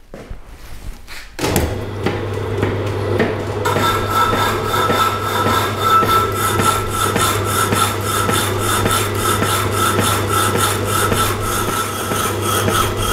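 Rapidor Manchester power hacksaw: its electric motor starts with a steady hum, and about two seconds later the blade starts sawing through a black hot-rolled steel bar with a regular, fast rasping stroke that keeps on steadily.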